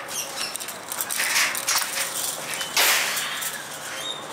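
Metal latch and wire-mesh aviary gate rattling and clinking as the gate is unlatched and opened, with a louder clank about three seconds in.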